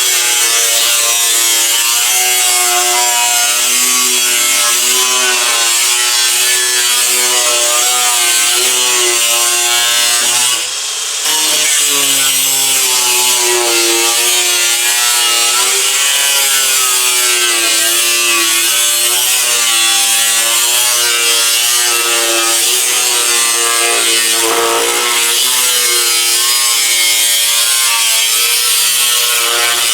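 A power tool cutting through a sheet-steel repair panel, its motor note wavering up and down under load, with a brief dip about ten seconds in.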